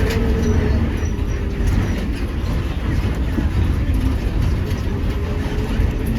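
Steady low rumble of a running vehicle, with faint voices in the background.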